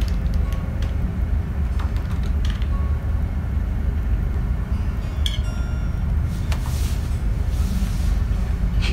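Steady low rumble of a ferry's engines heard inside a cabin, with a few scattered light clicks.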